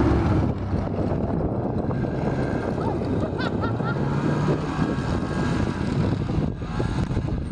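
Ski-Doo snowmobile engine running as the machine pulls away and drives off across the snow, a steady drone with a somewhat stronger low engine note about halfway through.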